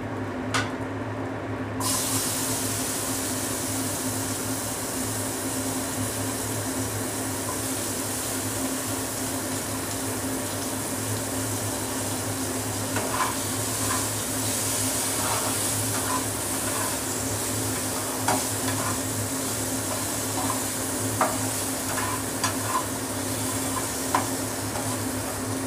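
Sliced onions hitting hot mustard oil in a kadai: a sudden sizzle about two seconds in that settles into a steady frying hiss. From about halfway on, a spatula scrapes and taps against the pan as the onions are stirred.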